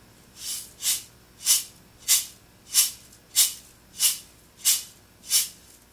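Tube shaker shaken forward and backward in a steady, even rhythm: about ten short swishes of the shot inside, roughly three every two seconds.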